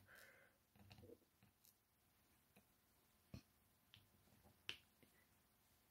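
Near silence with a few faint, sharp clicks of a diamond-painting drill pen tapping resin drills onto the adhesive canvas. The clearest clicks come about a third and about three quarters of the way through.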